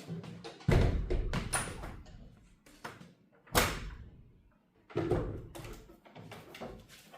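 A series of heavy thumps and knocks: three loud ones spread through the stretch, with smaller clicks and knocks between them.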